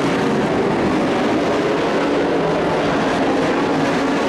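Engines of several dirt-track race trucks running at racing speed around the oval, a steady loud drone with a slowly shifting pitch.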